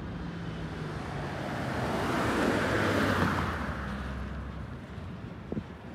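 Two SUVs, a Mahindra Thar diesel and a Hyundai Creta petrol, passing close by at drag-race speed: a rush of tyre and wind noise that swells to a peak about halfway through and then fades as they pull away.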